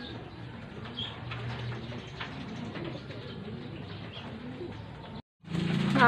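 Young racing pigeons cooing softly, low curving coos repeating over and over; the sound cuts off abruptly about five seconds in.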